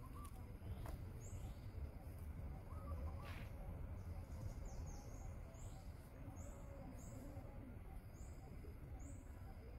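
Outdoor ambience: a steady low rumble with repeated short, high chirps that come more often in the second half, roughly one or two a second, and a brief warbling call about three seconds in.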